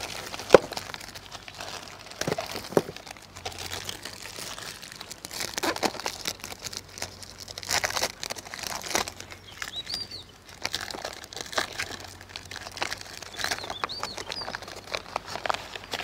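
KitKat wrappers being opened by hand: the paper outer wrapper and the inner aluminium foil crinkle and tear in irregular bursts as each bar is peeled out.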